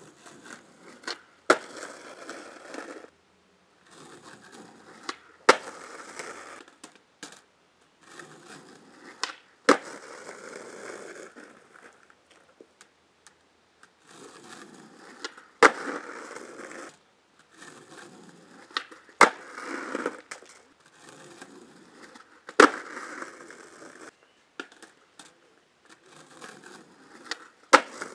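Skateboard wheels rolling on concrete, broken by loud sharp cracks of the tail popping and the deck slapping down on landing, over a run of repeated ollie attempts. There are about seven big cracks, a few seconds apart, with smaller clacks between.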